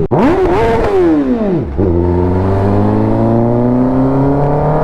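Kawasaki ZX-10R inline-four through an Arrow full-system exhaust: the revs fall steeply off the throttle, then the engine pulls in gear with a steady note slowly rising in pitch.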